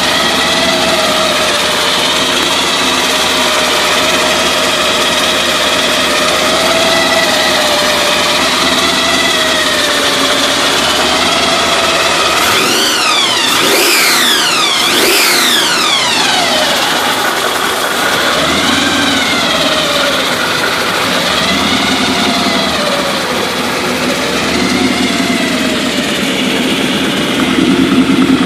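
1965 Chevy truck's carbureted engine idling, revved twice by hand at the carburetor throttle linkage about halfway through, each rev climbing and falling back to idle, followed by a few lighter blips.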